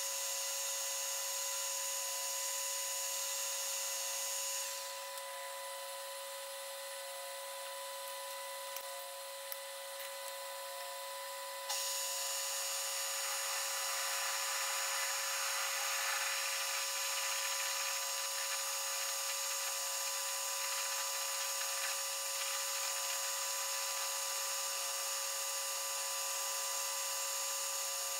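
Metal lathe running while a drill fed from the tailstock cuts into the old stub shaft held in the chuck: a steady machine whine with scraping cutting noise. About five seconds in the sound drops and the higher whine goes away, then it comes back abruptly about twelve seconds in, with the cutting noise stronger.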